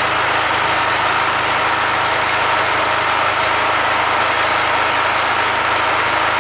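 Multipro GG 3900 portable generator engine running at a steady speed. It is powering a switched-on inverter welder but is not yet under welding load, so it gives an even, unchanging hum.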